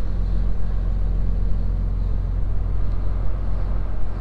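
The 2004 Ford F-650's 5.9 Cummins diesel engine running steadily, its sound mostly a low drone.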